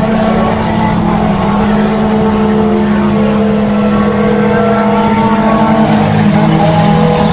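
Race car engines running loudly during a heat race. The engine note holds fairly steady, drifting slightly in pitch.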